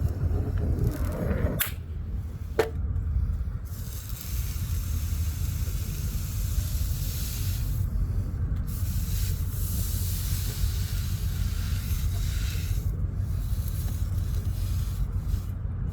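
Brazing torch hissing steadily as a filter drier is brazed into the refrigerant line, with brief drop-outs as the flame is moved or shut off. Two sharp clicks come before the hiss starts, over a steady low rumble.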